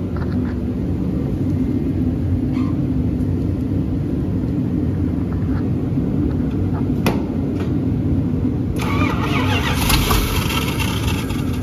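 The engine of a Chevrolet C60 grain truck being cranked over and started after a new carburettor was fitted, with a steady low mechanical churn; it is not yet running cleanly. About nine seconds in, a loud hissing rush joins it.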